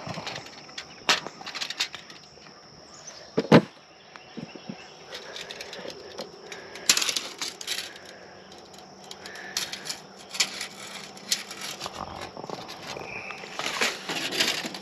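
Parts of a roof rack cargo basket being handled and fitted together: scattered clicks, rattles and knocks, with one sharp knock about three and a half seconds in and short scraping bursts near the middle and the end.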